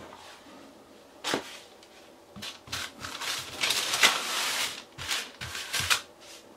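Raw flour-tortilla dough sheets handled on paper: lifted, laid down and smoothed flat, giving a sharp tap about a second in, a run of rustling and rubbing, loudest about four seconds in, and a few more light taps near the end.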